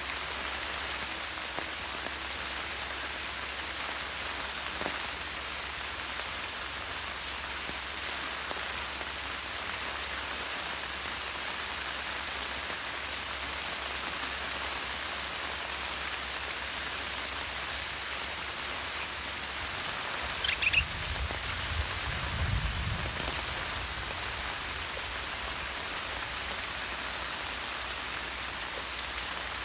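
Steady rain falling, an even hiss of drops. About twenty seconds in there is a brief high chirp, then a few dull low thumps.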